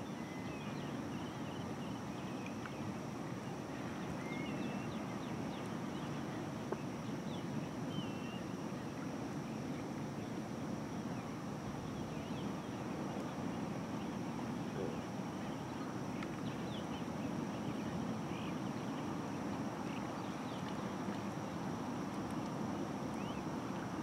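Outdoor wetland ambience: a steady low rumble, with many faint, short bird chirps scattered throughout and a steady high-pitched hum.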